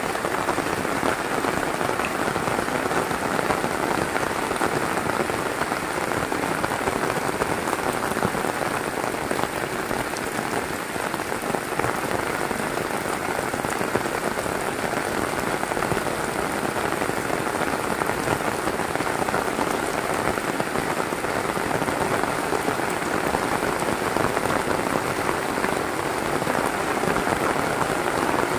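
Heavy rain falling steadily, a dense, even patter of drops on surfaces that holds at the same level throughout.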